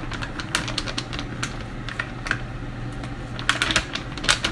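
A kitchen utensil clicking and tapping irregularly against a mixing bowl as dry frying-batter powder is scooped and mixed, with a quick cluster of clicks near the end.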